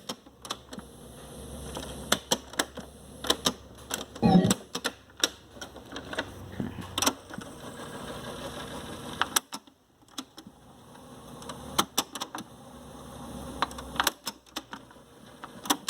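Sony CFS-1035S boombox cassette deck being worked by hand: repeated sharp mechanical clicks of its keys and cassette door over the whirr of the tape transport running. The whirr cuts out about nine and a half seconds in, then starts again.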